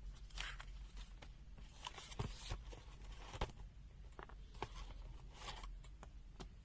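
Faint rustling and scattered light clicks of packaging and small items being handled as a multimeter kit is unpacked.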